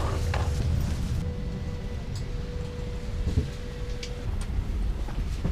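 Steady low rumble of an airliner cabin with the plane parked after landing, carrying a thin steady tone that stops about four seconds in. A few soft knocks and rustles come from bags being handled.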